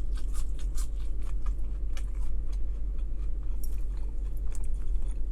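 A person chewing fast food with the mouth close to the microphone: irregular wet clicks and small crunches, over a steady low hum.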